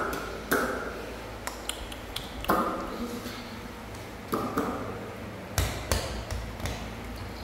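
A series of about six sharp knocks or taps, irregularly spaced, each with a brief ringing tail.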